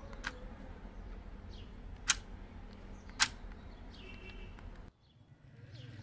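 Three sharp clicks about a second apart over a low steady hum, the last two the loudest; the sound drops out abruptly near the end.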